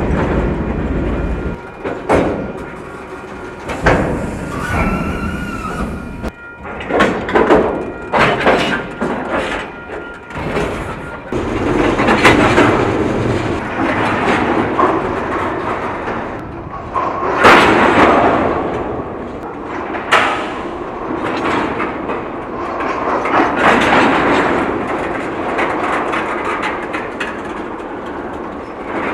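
Couplers on a slow-moving freight train banging as slack runs in and out between the cars: an irregular string of sharp bangs and booms, some in quick clusters, over the rumble and clatter of steel wheels on rail.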